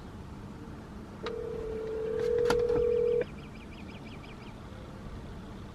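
A phone call's ringback tone through the phone's speaker: one steady ring about two seconds long, starting about a second in, the call ringing and not yet answered. A click at the ring's start and another in its middle, with a faint rapid high ticking over its end.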